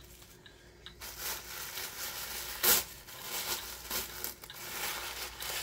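Packaging being unwrapped by hand: irregular crinkling and rustling, with one sharper, louder crackle partway through.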